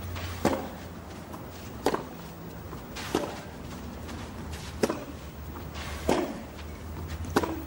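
Tennis rally on clay: racket strikes on the ball, six sharp hits at an even pace of about one every second and a third, over a steady low hum.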